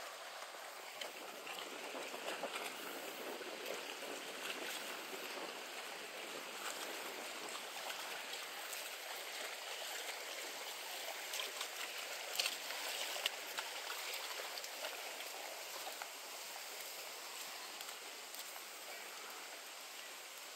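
Steady rushing outdoor ambience of breeze and lagoon water, with a few sharp clicks about two-thirds of the way through.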